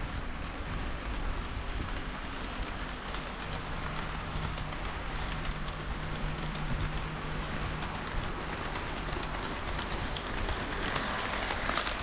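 HO-scale model diesel railcars running on sectional track: a steady rolling rattle of small metal wheels on rail with a low hum underneath, growing louder near the end as a train passes close to the microphone.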